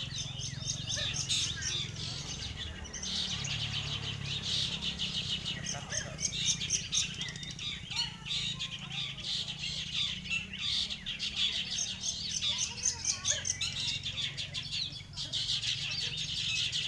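Long-tailed shrikes (cendet) singing at once: fast, dense, high-pitched chattering and chirping that hardly pauses, over a steady low rumble of background noise.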